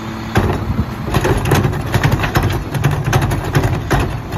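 Recyclables clattering and banging as a plastic recycling cart is tipped by hand and shaken out into the hopper of a McNeilus rear-loader garbage truck, starting about half a second in and stopping near the end. Underneath, the truck's Mack diesel engine idles steadily.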